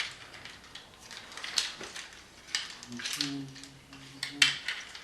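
Plastic parts of a Transformers Voyager Ratchet figure clicking and rattling as it is handled and transformed, with several sharp clicks of joints and panels snapping about.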